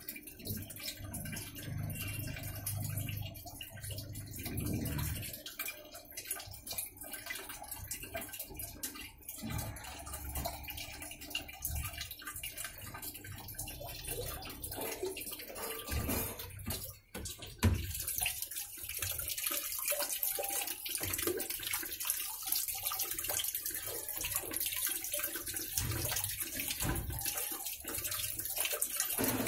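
Midea top-load washing machine running with water in the tub, water sloshing and rushing, with irregular knocks and a sharp knock about 17 seconds in, after which a steady rushing hiss sets in. The technician judges the machine's gearbox faulty.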